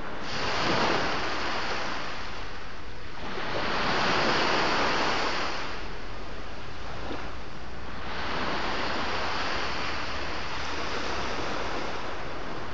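Sea surf: waves breaking and washing ashore in three rising and falling surges, over a steady low rumble.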